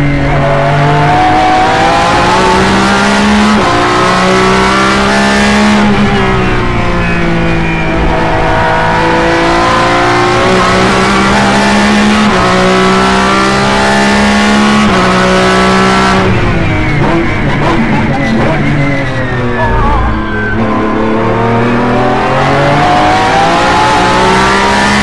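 Lamborghini Essenza SCV12's V12 engine, heard from inside the cockpit, pulling hard on track. Its note climbs steadily, falls away sharply about six and again about sixteen seconds in, then climbs again as the car accelerates.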